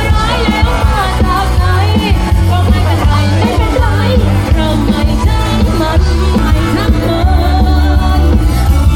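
Loud pop music with a singing voice over a heavy bass.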